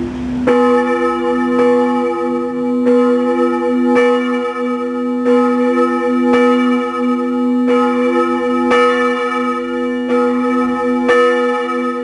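Church bells ringing, struck about once a second, with a steady low hum lingering between strikes.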